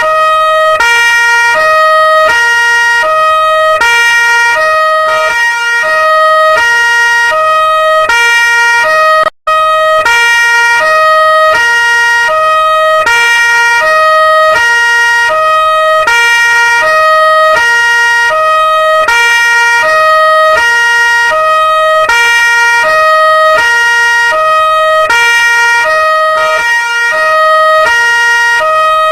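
Police siren sounding a two-tone hi-lo wail, switching evenly between a higher and a lower pitch about once a second. It cuts out for an instant about nine seconds in, then carries on.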